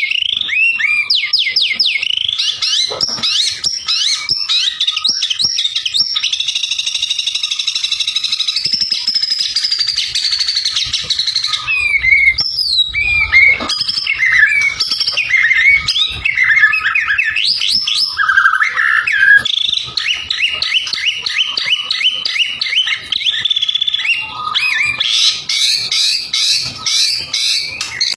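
White-rumped shama (murai batu) singing a loud, continuous, varied song of fast trills, rising and falling whistles and runs of rapidly repeated notes.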